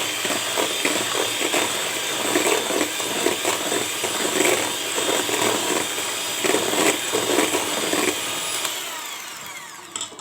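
Electric mixer running steadily, beating eggs, sugar and oil for pancake batter, with the beaters clattering unevenly in the bowl. It is switched off near the end and its whine falls away as it spins down.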